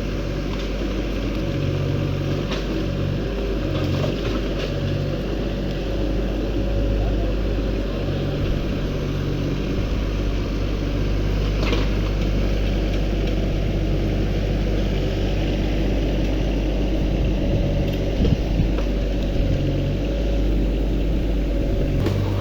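Mini excavator's diesel engine running steadily while working, its pitch shifting every few seconds. A few sharp knocks stand out, about halfway through and again near the end.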